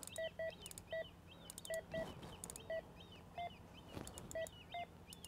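Carp rod bite alarms giving short single bleeps, about nine at irregular intervals, as the lines are wound tight on the reels; faint quick clicking from the reel between bleeps.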